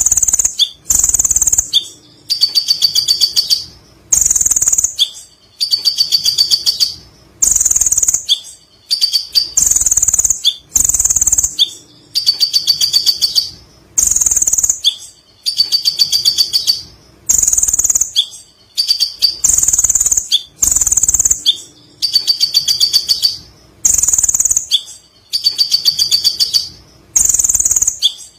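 Kolibri ninja sunbird singing its high, rapid chattering song in phrases of about a second and a half, repeated about every two seconds with short gaps between.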